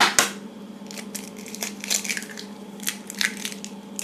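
An egg being cracked and its shell broken open. There is one sharp crack at the start, then a scatter of small crackles and clicks from the shell.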